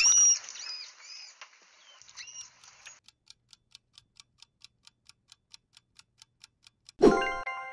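Manatee squeaking and chirping: a few short, high, arching calls over the first three seconds. Then a clock ticks about four times a second as a countdown, and a bright chime near the end is the loudest sound.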